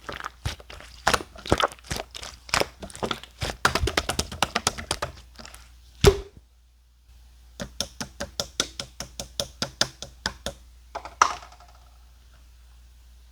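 Clear slime being squished and worked, giving rapid sticky clicks and pops. After a short pause about six seconds in, a steadier run of about four or five pops a second follows, with one louder pop near the end.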